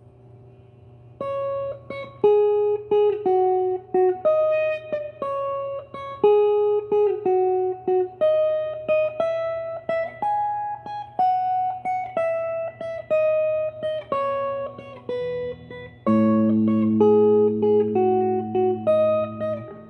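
Electric guitar through a Marshall Valvestate VS30R combo amp, playing a clean-sounding line of single picked notes that ring and overlap. A low amp hum is heard before the first note, and from near the end fuller, lower chords join in.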